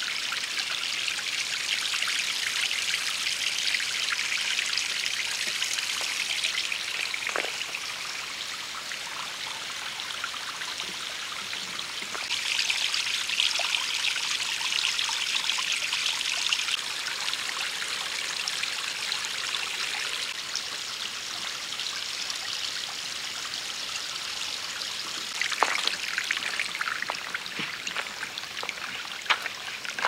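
Shallow stream running in a thin sheet over flat bedrock ledges and trickling down small rock steps: a steady high water hiss, louder for the first several seconds and again for a few seconds around the middle. A few sharp clicks near the end.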